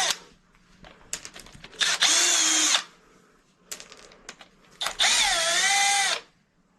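Power drill spinning bolts out of an engine cover in two runs of about a second each. The motor whine dips in pitch as it takes the load and then recovers, with short metallic clicks between the runs.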